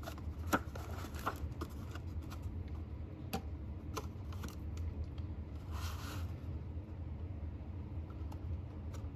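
Cardstock treat box being handled on a cutting mat: a few light clicks and taps in the first four seconds and a short paper rustle about six seconds in, over a steady low hum.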